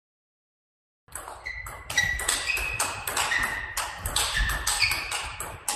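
Table tennis rally: a celluloid-type ball cracking off the paddles and bouncing on the table in quick succession, about three to four clicks a second, starting about a second in.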